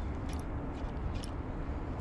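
Steady low outdoor rumble, with two short high-pitched ticks, about a third of a second in and again just past one second.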